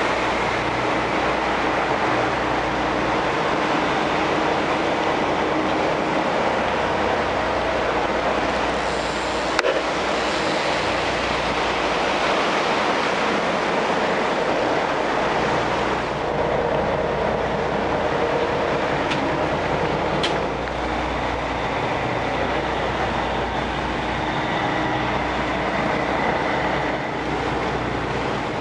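Sportfishing boat under way: its engines drone steadily under the rush of wake water and wind, a constant loud noise.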